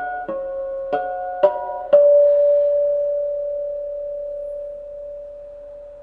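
Guitar playing a short phrase of single plucked notes, five in the first two seconds, then letting one note ring on and slowly fade.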